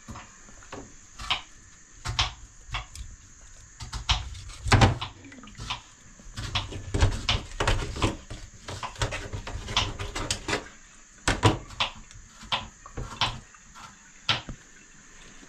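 Knife working on a whole fresh fish at a steel kitchen sink: an irregular run of short scrapes and clicks, with occasional low knocks as the fish and knife touch the sink and bowl.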